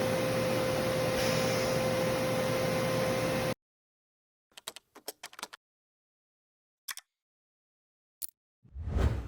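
Brother Speedio R450X1 vertical machining center running with a steady hum and a high steady tone. The sound cuts off abruptly about three and a half seconds in. Silence follows, broken by a quick run of short clicks, two single clicks, and a low whoosh-boom near the end.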